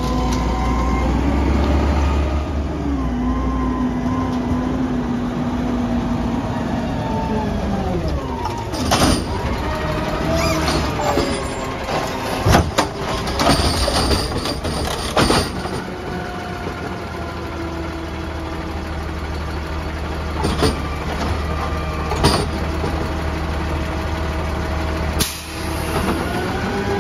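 Natural-gas Peterbilt 320 garbage truck with a McNeilus ZR automated side-loader running, its engine pitch gliding up and down as it pulls up and works the arm. A series of sharp clanks and knocks comes as the automated arm grabs the cart, with a brief air hiss and the engine rising in pitch near the end as the arm lifts the cart over the hopper.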